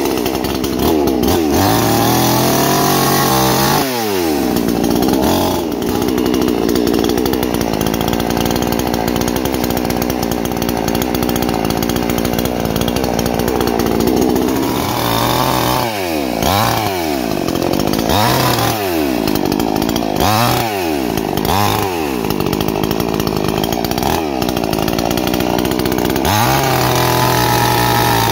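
Tokai two-stroke chainsaw running: held at high revs for a long stretch, then revved up and down about six times in a row, dropping back to a lower steady idle near the end.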